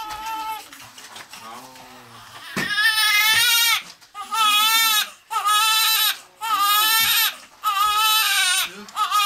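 Newborn baby crying: quiet fussing at first, then from about two and a half seconds in, a run of loud wails, each about a second long, with short gasps between.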